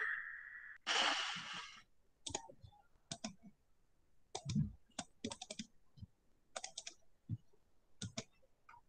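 Computer mouse clicks and keyboard key taps come in irregular single clicks and quick clusters while PowerPoint slides are being navigated. A short burst of hiss sounds in the first two seconds.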